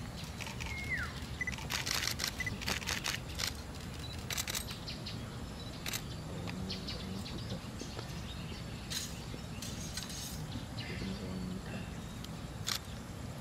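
Birds calling, including a short whistle that falls in pitch, over scattered sharp clicks and the taps of boots marching on stone paving.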